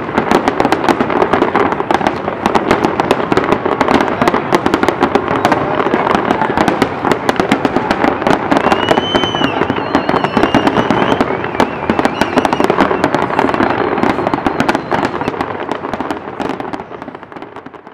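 Large fireworks display going off in dense, continuous rapid bangs and crackles. A wavering high whistle sounds for a few seconds in the middle, and the sound fades out near the end.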